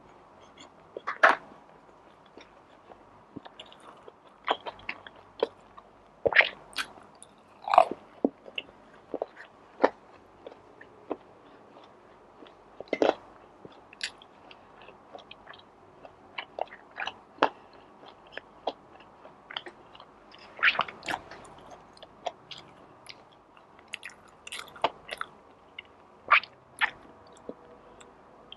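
A person chewing and biting food close to the microphone, with irregular wet mouth clicks and short crunches separated by quieter pauses.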